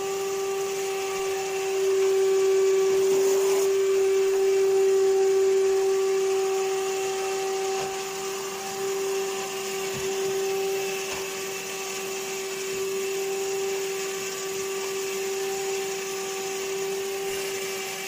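Henry canister vacuum cleaner running steadily, its motor holding one constant tone over a rushing hiss, a little quieter after about eight seconds.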